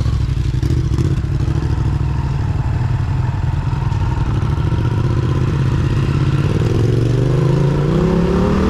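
Motorcycle engine running steadily at low speed, then rising in pitch as it accelerates over the last two seconds.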